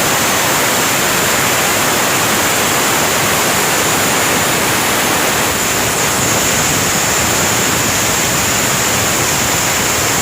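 Pressure cooker whistling: steam jetting steadily past the weight valve in a loud, unbroken hiss with a shrill edge. It is the third whistle, the sign that the pressure-cooking is done.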